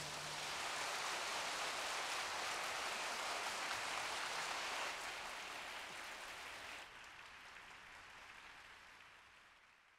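Audience applauding, a steady clapping that fades out over the second half until it is gone.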